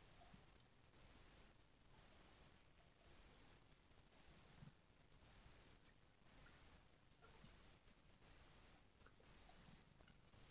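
A high-pitched insect call: a steady trill in evenly spaced pulses about half a second long, roughly once a second.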